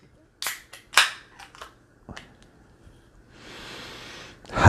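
An aluminium beer can being cracked open: two sharp clicks as the pull tab snaps the lid, about half a second and a second in, and a few lighter metallic clicks after them. Near the end comes a long breathy sniff at the opened can.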